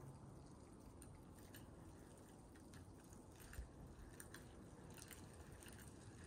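Near silence: a faint low rumble with scattered faint ticks, and one soft knock a little past halfway.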